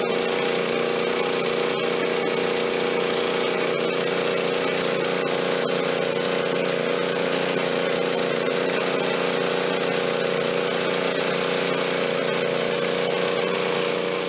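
Sportsman GEN2000 portable generator's gasoline engine running at a steady pitch under a heavy electrical load of about 825 watts, very near the limit of its load capacity.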